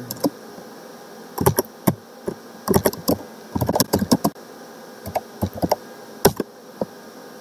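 Typing on a computer keyboard: irregular clusters of keystroke clicks as a shell command is typed, with short pauses between the bursts.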